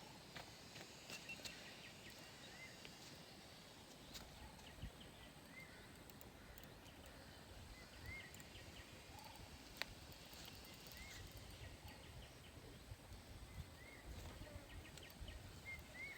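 Quiet outdoor ambience with a faint low rumble and scattered small clicks. Over it, a short animal chirp repeats every two to three seconds.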